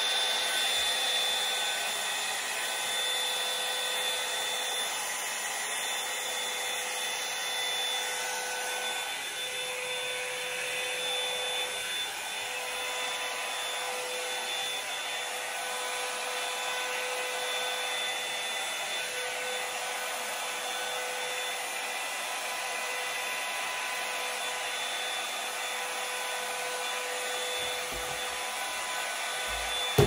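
Revlon One-Step hot-air brush hair dryer running steadily: a constant rush of air with a steady motor whine, as the round brush is drawn through hair.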